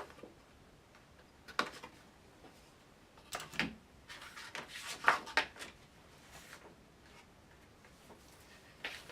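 Corner rounder punch cutting the corners of a paper background: several short sharp clicks a second or two apart, with paper handling between them.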